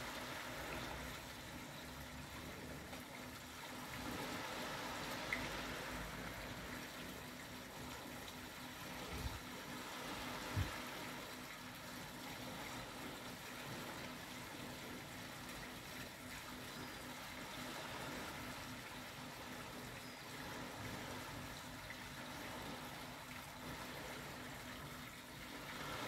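Gentle sea waves washing onto a sandy beach, a steady wash that swells and eases slowly. A couple of brief low thumps about ten seconds in.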